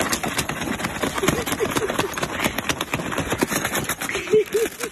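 Wrapping paper crinkling and tearing as a dog rips open a wrapped present with its mouth: a continuous crackle of many small rustles and rips. A few short voiced sounds come about a second and a half in and again near the end.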